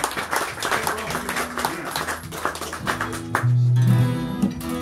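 Acoustic guitars being strummed. From about three seconds in, a chord rings on steadily.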